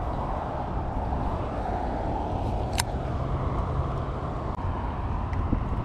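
Steady low rumble of wind buffeting the action-camera microphone, with one sharp click about three seconds in.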